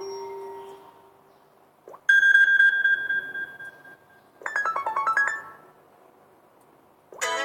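iPhone alert tones played one after another. A tone fades out, then a single bright electronic note is held for about two seconds, then a quick run of short notes steps downward. Near the end a new, busier ringtone starts.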